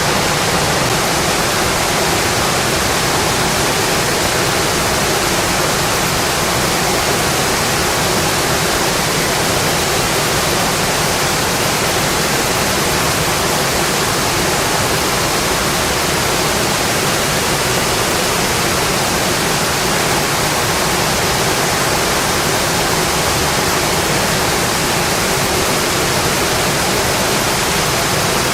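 Steady, heavy rainfall: a continuous even hiss of rain with no separate drops or thunder standing out.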